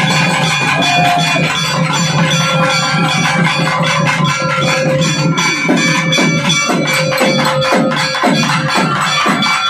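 Live festival band: barrel drums beaten with sticks in a fast, dense rhythm, with a wind instrument holding long steady notes over it.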